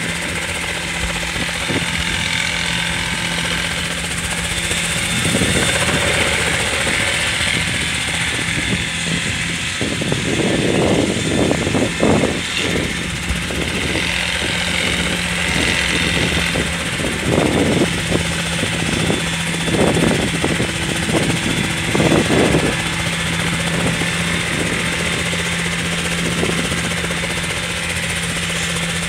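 ROTORfly helicopter flying and hovering in wind, its rotor and engine giving a steady hum, with gusts of wind buffeting the microphone several times midway through.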